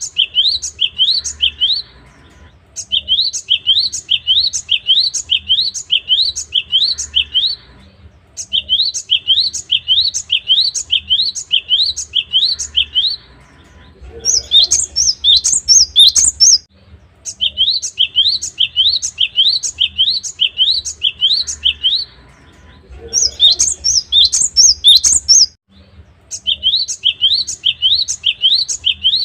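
Cinereous tit (gelatik batu) singing in bouts of about five seconds. Each bout is a fast run of repeated high rising notes, with short pauses between bouts. About halfway through, and again about two-thirds through, the song switches to a higher, jumbled phrase.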